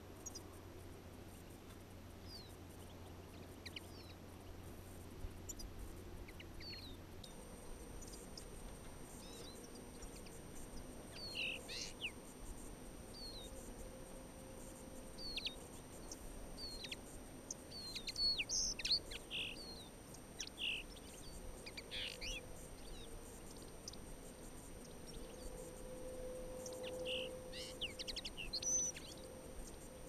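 Small songbirds giving short, high chirping calls, sparse at first and coming more often from about ten seconds in, loudest a little past the middle.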